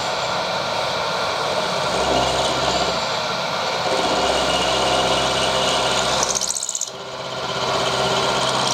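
A power tool runs steadily while cutting or grinding metal, with the noise dropping away briefly just before seven seconds in and then picking up again.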